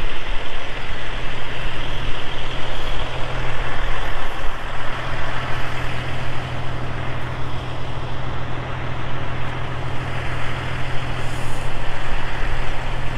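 Semi-truck diesel engine idling close by: a steady, unbroken low rumble with a noisy hiss above it.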